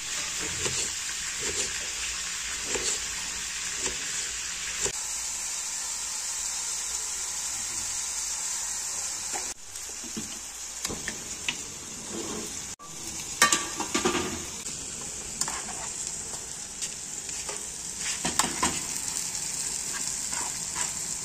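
Pork chops and onion frying in a pan, a steady sizzle, with a few short clinks of a utensil stirring, loudest about two-thirds of the way through.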